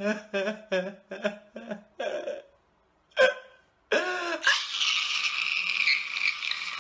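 A man crying loudly. It starts as a run of short sobs, about three a second, and a sharp gasping sob comes just after three seconds in. From about four seconds in it becomes one long, loud wail.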